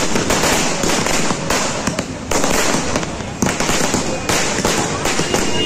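Firecrackers going off on the road in a rapid, continuous run of loud cracks, set off as the starting signal for a dhol-tasha troupe to begin playing.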